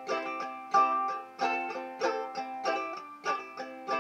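Banjo ukulele played with a simple clawhammer strum: bright, twangy plucked chords struck in a steady rhythm, each stroke ringing out before the next.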